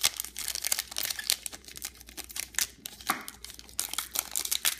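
Foil wrapper of a Pokémon Double Crisis booster pack crinkling and tearing as it is picked and torn open by hand, a dense, irregular run of crackles.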